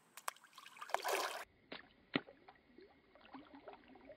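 Faint water sounds: small drips and splashes on a pond's surface, with a bass breaking the surface to strike a floating bait near the end. A short rush of noise about a second in, and a few sharp ticks.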